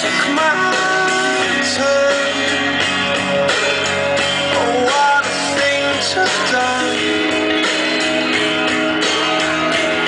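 Music: a song with guitar and a singing voice, loud and steady throughout.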